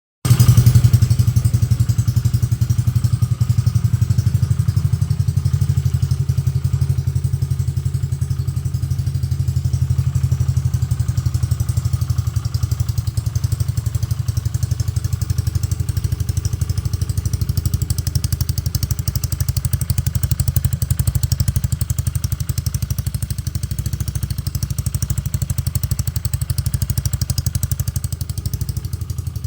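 Yamaha Fino scooter's single-cylinder four-stroke engine running steadily at idle through a JVT aftermarket exhaust pipe, with a deep, even pulsing exhaust note.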